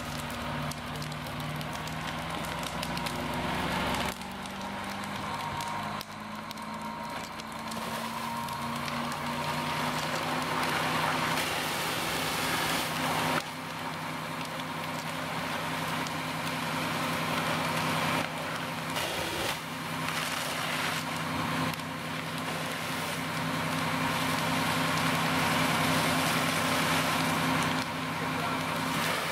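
Fire engine's engine and pump running hard, their pitch climbing a few seconds in and then holding steady. Behind them are the rushing hiss of the deck-gun water stream and the crackle of the burning house.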